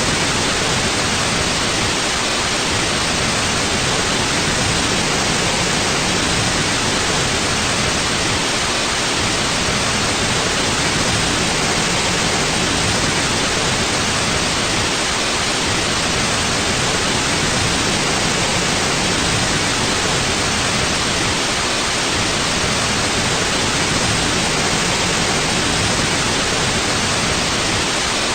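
Steady white noise: an even, unbroken hiss across the whole range, with no change in level.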